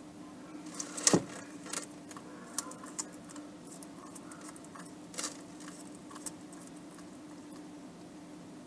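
Bearded dragon biting and chewing a piece of vegetable: a few sharp, moist crunching clicks, loudest about a second in, then scattered softer ones for several seconds. A steady faint low hum runs underneath.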